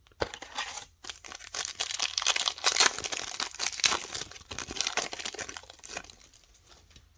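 Plastic trading-card pack wrapper being torn open and crinkled by hand: a dense crackle that grows loudest about halfway through and dies away about a second before the end.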